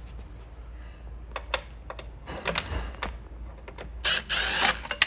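Cordless impact driver running in one short burst about four seconds in, backing a T20 Torx screw out of a plastic chair trim piece, with scattered light clicks and taps of the bit and plastic before and after.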